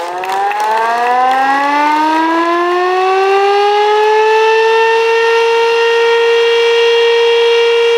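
Fire station siren winding up: its pitch rises steeply over the first few seconds, then levels off into a loud, steady wail.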